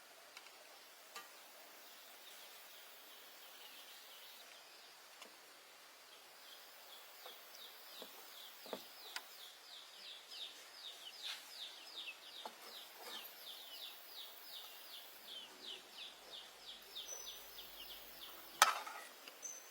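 A bird calling outdoors in a long series of short, high chirps, about three or four a second. A few faint clicks are heard, and one sharp knock comes near the end.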